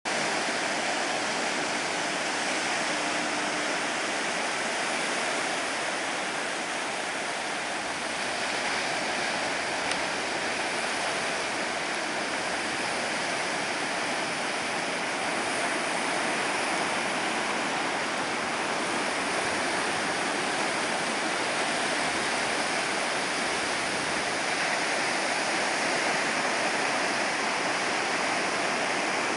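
Ocean surf breaking on a rocky beach, heard as a steady, even wash of water noise.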